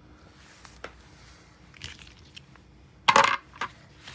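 Small hard tools and laptop parts handled on a workbench: a few faint clicks, then a brief clatter of hard objects about three seconds in, with one more click just after.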